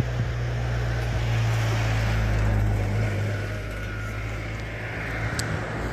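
Steady low hum of a motor vehicle's engine running, over a haze of outdoor noise, with a single sharp click a little after five seconds in.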